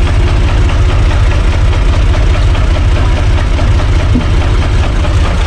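Universal U445 DT tractor's diesel engine running steadily at idle, heard from the driver's seat as a loud, fast, even low throb.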